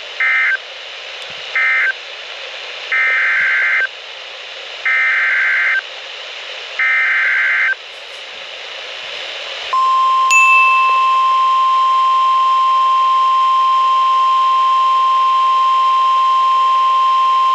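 Emergency Alert System tones received over NOAA Weather Radio with steady radio hiss. First come the last two short end-of-message data bursts, then three longer SAME header data bursts of about a second each announcing the next alert. About ten seconds in, the steady single-pitch 1050 Hz weather radio alert tone begins and holds.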